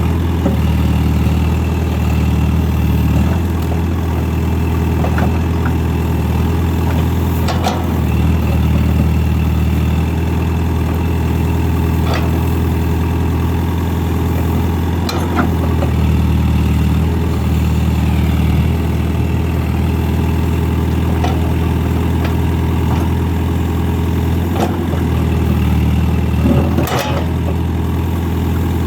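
A tractor-loader-backhoe's diesel engine running steadily while it digs, its note swelling and easing every few seconds as the hydraulics take load. There are a few sharp knocks along the way.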